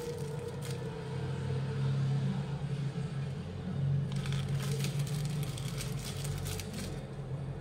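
A steady low hum runs under a pan of egg-coated bread cooking on a medium gas flame. About four to five seconds in comes a spell of crinkling and crackling, typical of the plastic wrapper being peeled off a processed cheese slice.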